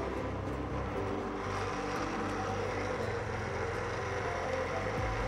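Electric countertop blender running steadily, puréeing a jug of cooking ingredients.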